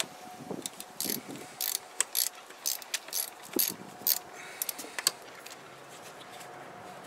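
Socket ratchet clicking in irregular short runs as it loosens the positive battery terminal clamp nut; the clicking stops about five seconds in.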